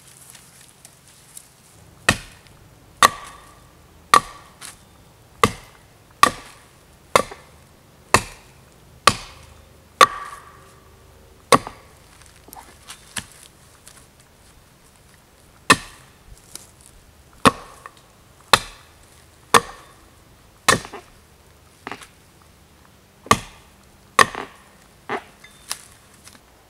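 Hatchet chopping wood: sharp single strokes about one a second, broken about halfway through by a few lighter taps.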